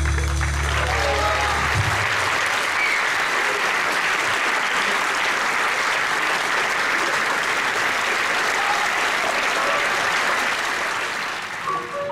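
Audience applauding with some cheering voices. The last low note of the music rings under the clapping for about the first two seconds, and the applause dies away near the end.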